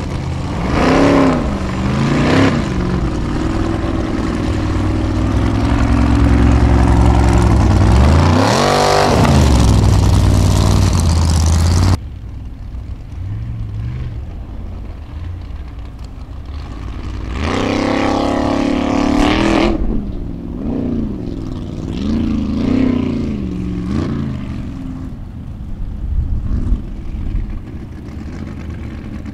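Formula Offroad buggy's engine revving hard in repeated bursts under load on a steep dirt climb, its pitch sweeping up and down. It drops off suddenly about twelve seconds in. A few seconds later comes another loud burst of revving, then smaller blips of throttle.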